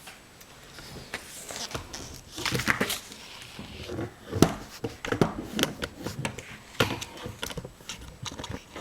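Oil pastel being worked on paper: scratchy strokes mixed with irregular taps and clicks. The loudest knock comes about four and a half seconds in.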